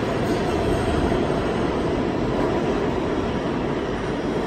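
New York City subway R160B train with Siemens propulsion pulling out of a station: a steady, loud rumble of wheels on rail that eases slightly as the last cars go by.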